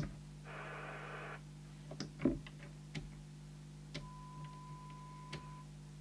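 President KP77 CB base station receiver under squelch test: a short burst of receiver hiss about half a second in, a few sharp clicks, then a steady test tone near 1 kHz for about a second and a half as the squelch opens on the signal generator's signal, over a low steady hum.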